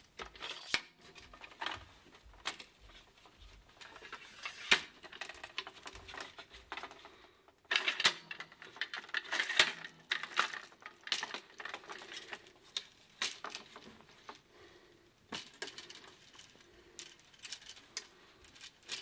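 Manfrotto 546B twin-leg video tripod being handled and set up: metal legs knocking and clattering, with sharp clicks of the leg locks. There is a loud single clack about five seconds in and a dense burst of rattling around eight to ten seconds in.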